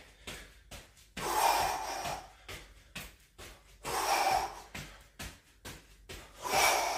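A man breathing hard through a cardio exercise interval: three forceful exhalations, about two and a half seconds apart, with light knocks in between.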